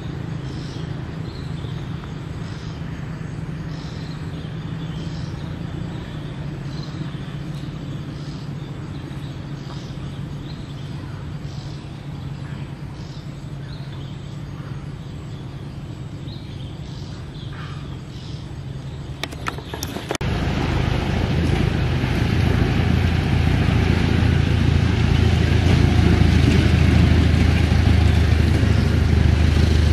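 A motor running with a steady low hum, faint ticks over it, growing markedly louder and fuller about twenty seconds in.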